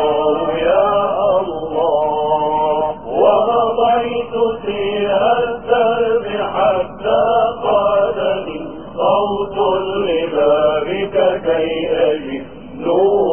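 Melodic vocal chanting: a voice holding long notes that bend and glide in pitch, in phrases a few seconds long broken by short pauses.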